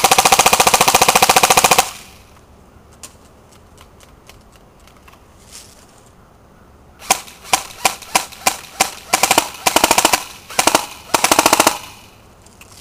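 Classic Army MP5A2 battery-powered airsoft electric gun firing at a cell phone: one long full-auto burst of about two seconds at the start, then after a lull a string of short rapid bursts and single shots until near the end.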